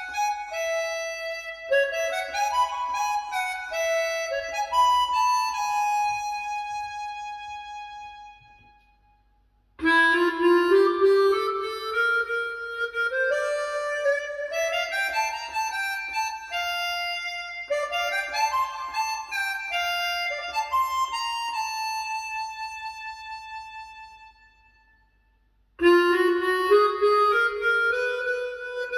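Solo harmonica music: phrases of melody with bent, sliding notes, each dying away into a short silence about nine and twenty-five seconds in before the next phrase starts.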